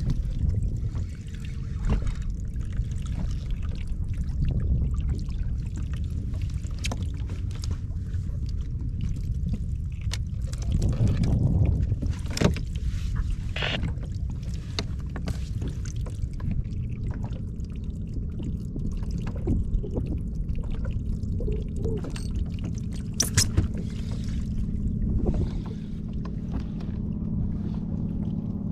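Water sloshing around a fishing kayak on the open sea, over a steady low rumble of wind, with a few sharp knocks and clicks from gear being handled.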